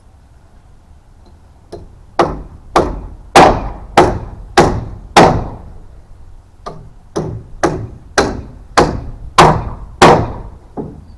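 Hammer driving nails into a wooden rafter: sharp, loud blows at about two a second, in two runs with a short pause near the middle.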